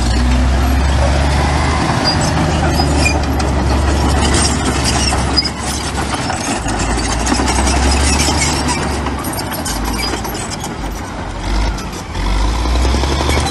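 Heavy diesel earthmoving machinery running under load: a deep engine drone that eases off and picks up again, with scattered high squeaks and clinks over it.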